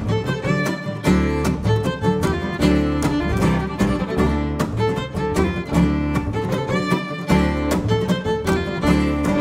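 Live acoustic string band playing an instrumental passage: bowed fiddle up front over a strummed acoustic guitar and a plucked upright double bass keeping a steady beat.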